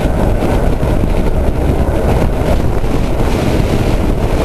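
Steady wind rumble on the microphone of a camera on a moving bicycle, mixed with the noise of road traffic.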